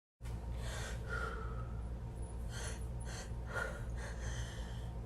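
Quiet breathing: several short sniffing, gasping breaths of a person about to sneeze, over a faint steady low hum.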